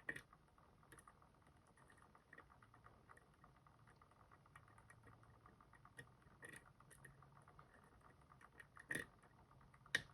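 Faint, scattered clicks and taps of a lock pick and tension tool working the pin stacks of a Robur safety deposit box lock, with a few sharper clicks, the plainest near the end.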